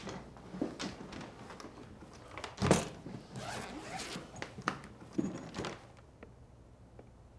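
Clothes and a bag being handled during packing: cloth rustling, a zip being pulled, and a heavy thud a little under three seconds in.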